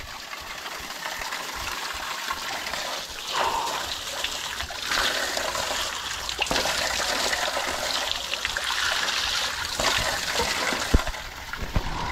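Water running from a roadside spring spout and splashing, a steady rushing pour, with a couple of sharp knocks near the end.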